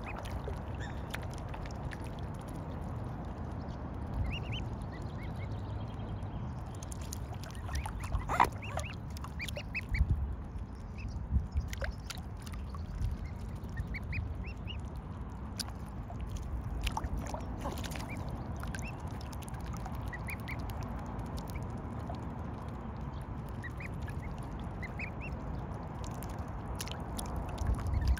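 Mute swan cygnets peeping: short, high calls in little clusters of two to four every few seconds, over a steady low background rumble. A few louder sharp knocks come about a third of the way through.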